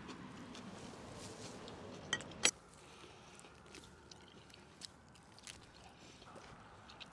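A person eating: chewing and biting, with scattered small clicks and two sharper clicks about two and a half seconds in.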